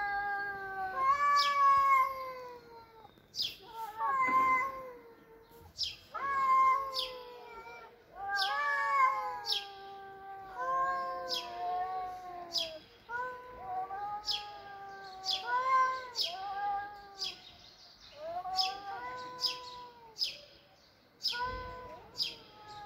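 Cats yowling in a territorial standoff: long, wavering, drawn-out calls of one to three seconds each, following one another with short breaks.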